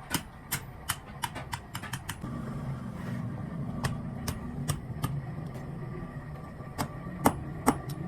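Hammer tapping on metal at a blacksmith's work, in irregular clusters of sharp ringing strikes. A low steady mechanical hum comes in about two seconds in and carries on under the taps.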